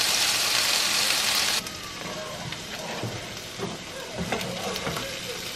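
Diced marinated chicken hitting hot oil in a frying pan, sizzling loudly for about a second and a half. The sizzle then drops suddenly to a quieter, steady frying sizzle with a few light pops.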